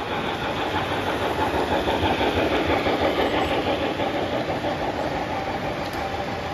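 O scale model freight train rolling past on its track behind a small steam locomotive: a steady rumble of wheels on rail that swells as the cars pass close, loudest around the middle, then eases.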